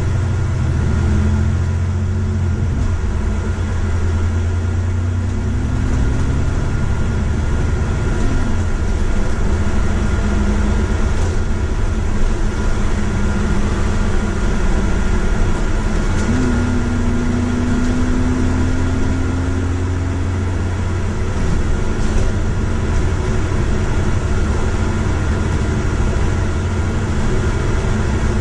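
Bus engine and drivetrain running, heard from inside the moving bus: a steady low drone whose pitch jumps and then slowly rises a few times as the bus drives on and changes speed.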